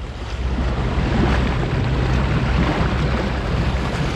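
Water rushing and splashing along the pontoon boat's hull tube as it moves, over the low, steady hum of its 150-horsepower outboard.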